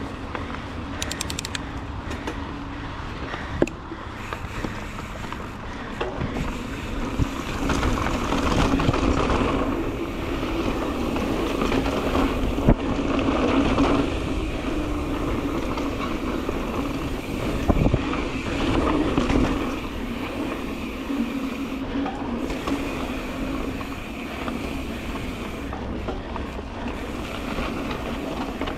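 Mountain bike riding along a dirt trail: steady tyre and drivetrain rattle that surges and eases with the terrain, with a few sharp knocks from bumps.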